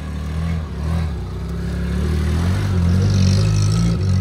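Suzuki Carry mini truck's engine running as the truck pulls away on a dirt track, its pitch wavering and rising as it accelerates and growing louder toward the end.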